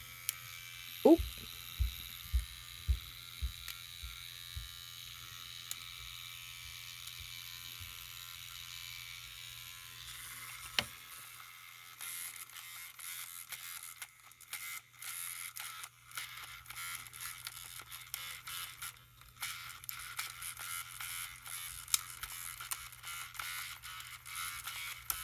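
A Furby's small electric motor running and its plastic gearbox grinding as the mechanism jams. A run of low knocks comes in the first few seconds, and from about halfway the sound turns choppy and uneven.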